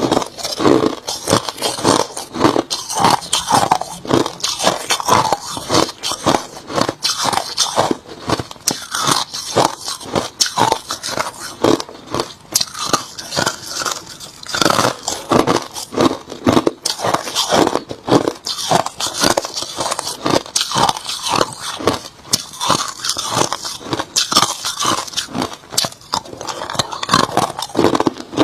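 Someone chewing hard crushed ice close to the microphone: a continuous run of sharp, crackling crunches, several a second.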